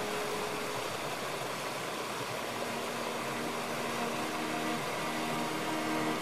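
Steady rushing of a stream cascading over rocks, with soft relaxation music of long held notes beneath it that change pitch a few times.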